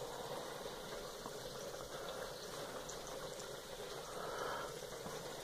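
Steady faint sizzle of turkey tenders frying in canola and olive oil, with a soft swell about four seconds in as a fork works through the flour coating.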